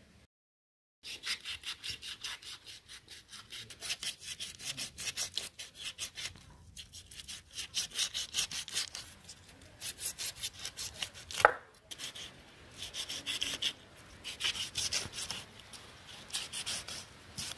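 Kitchen knife scraping the scales off a large catla fish on a wooden board, in quick rhythmic strokes, several a second, in runs with short pauses. One louder sharp knock about two-thirds of the way through.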